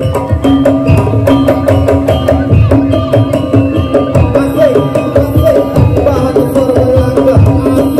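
Madurese daul percussion ensemble playing loudly: drums beat a fast, driving rhythm while a melody line bending up and down in pitch rides over it.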